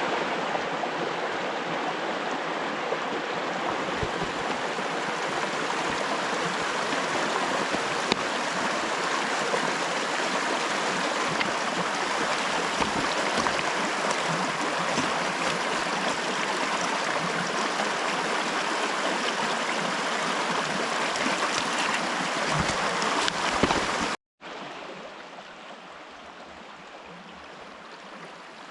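Filet mignon sizzling in a pan, a steady loud hiss with small pops. It cuts off suddenly about 24 seconds in, leaving a fainter hiss.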